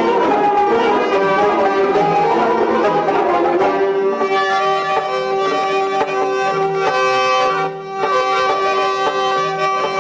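Background instrumental music in a traditional style: a melody over a long-held note that comes in about four seconds in.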